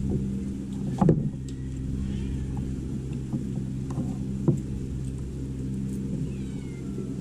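Steady low motor hum, with a few light clicks of tableware.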